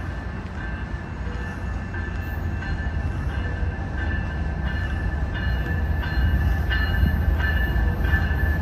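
Low rumble of an approaching Union Pacific freight train's diesel locomotives, growing steadily louder, over a steady high-pitched tone.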